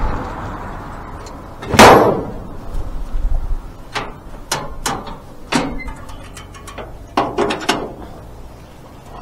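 A loud clunk about two seconds in, then a string of lighter clicks and knocks: a car's hood being unlatched and raised to get at the engine.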